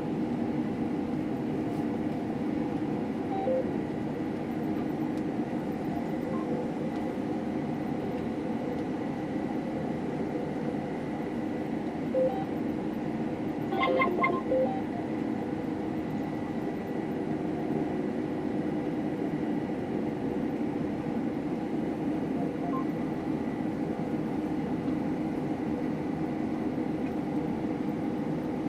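Combine harvester running steadily while cutting wheat, an even machine drone, with a few short beeps near the middle.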